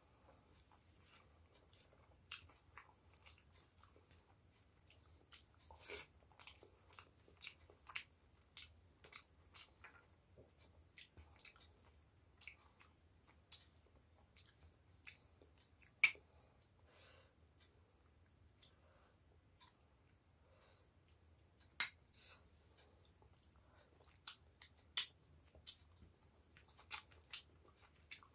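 Close-miked eating sounds: soft irregular clicks and smacks of chewing rice and curry eaten by hand, with a sharper click about 16 s in, over a faint steady high-pitched buzz.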